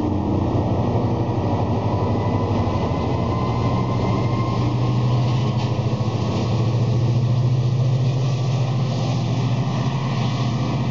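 MARC commuter train departing: the coaches' wheels rumble along the rails, then the MP36PH-3S diesel locomotive pushing at the rear passes with its engine working, a steady low drone that is loudest from about six to nine seconds in.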